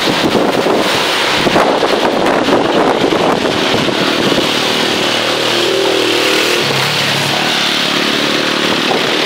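Road traffic passing close by, with wind buffeting the microphone. A car goes by first, then a large motorcycle's engine passes with its pitch dropping, then a small box truck's engine comes in lower near the end.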